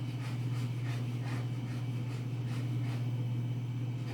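Light rubbing and faint clicks of plastic parts being handled as a manual pull-cord food processor is fitted back together, over a steady low hum.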